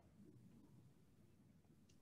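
Near silence: room tone in a pause between speakers on a video call.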